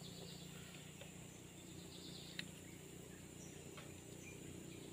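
Quiet riverside ambience: a faint, steady drone of insects, with one short click about two and a half seconds in.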